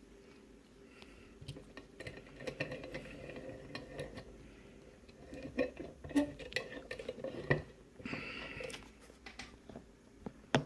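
Small metal clicks and clinks of a padlock and lock-picking tools being handled, with a brief scraping rustle about eight seconds in and one sharp loud click near the end.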